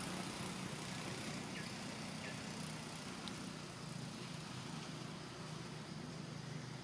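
Steady low hum under an even hiss, with two faint short chirps about a second and a half and two seconds in and a tiny click a little after three seconds.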